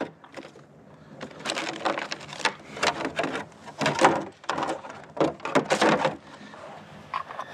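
Irregular clattering and knocking of gear being rummaged through on a kayak in a search for fish grips. It starts about a second in and dies down about six seconds in.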